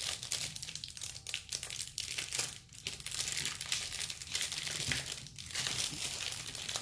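Irregular plastic crinkling and clicking from small glitter containers being handled and rummaged through.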